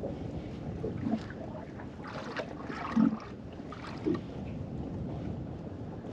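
Water lapping against the hull of a small drifting boat, with wind on the microphone and three short low knocks.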